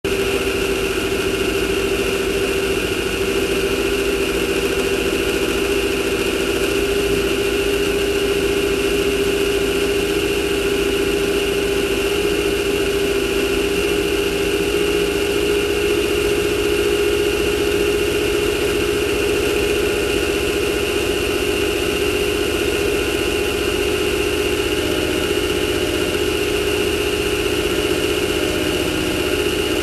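Off-road race car's engine running steadily at an even pitch, with no revving, and a steady high whine alongside it.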